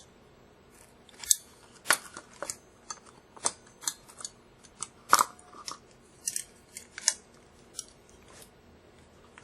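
Metal staples and fabric being pried and torn off a wooden futon leg with vice grips: about a dozen sharp, irregular clicks and snaps, the loudest about halfway through.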